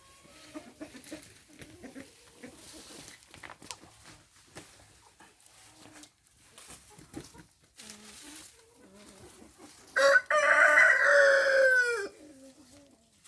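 Rooster crowing once near the end, a loud call of about two seconds that drops in pitch as it tails off. Before it come soft chicken clucks and scattered small sounds.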